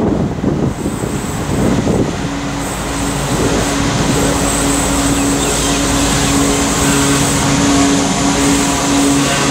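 Three Pacific National 92 class diesel-electric locomotives hauling a loaded coal train, their engines droning steadily and growing a little louder as they approach. Gusts of wind buffet the microphone in the first couple of seconds.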